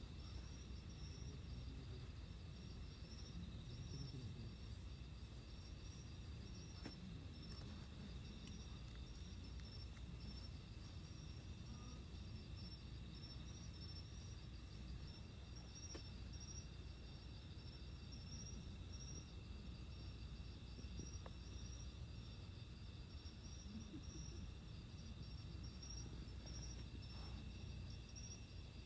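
Insects, likely crickets, chirping in faint, steady rhythmic pulses, with several high trills sounding at once over a low rumble.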